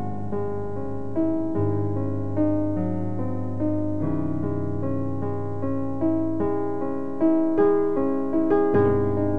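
Slow keyboard music in a piano sound: a melody of struck notes, a few per second, over held low bass notes that change every second or two.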